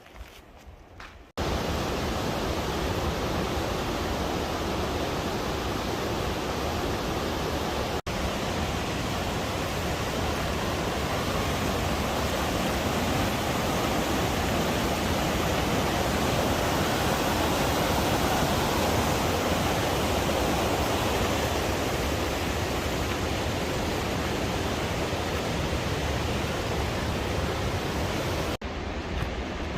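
Steady rush of whitewater from a river cascade. It cuts in suddenly about a second in, drops out for an instant about eight seconds in, and stops abruptly shortly before the end.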